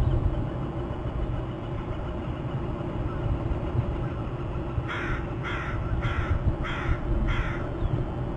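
A crow cawing five times in an even series, about two calls a second, over a steady low rumble.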